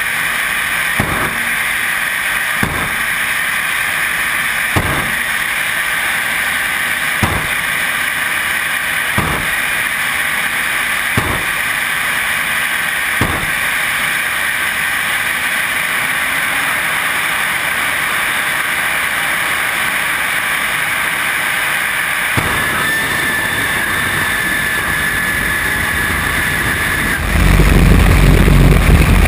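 Drag-racing jet car's jet engine running steadily at the start line, with sharp pops about every two seconds. Near the end it jumps to a much louder blast as the car launches down the strip, with wind rushing over the car.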